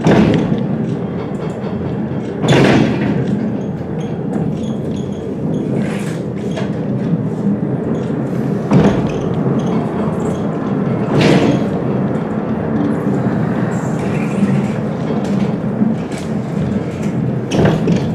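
Bridgnorth Cliff Railway funicular car running on its cable-hauled track: a steady rumble with sharp clunks every two to three seconds.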